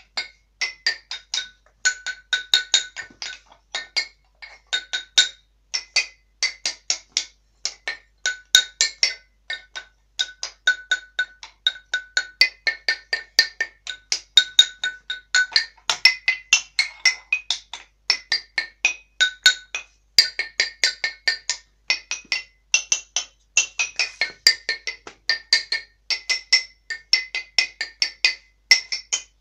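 A xylophone played as a melody of quick single struck notes, several a second, in phrases with short pauses between them. Each note rings briefly.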